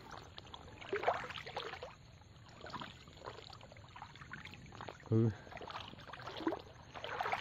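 Footsteps wading through shallow floodwater and wet marsh grass: irregular splashes and swishes.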